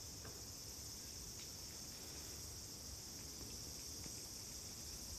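Faint, steady high-pitched chorus of insects, with no pause or change, over a low background rumble.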